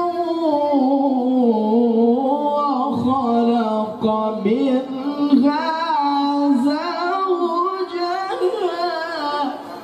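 Quran recitation (tilawah) by a young male qari in a high voice, sung as long melodic phrases with held notes and wavering, melismatic ornaments.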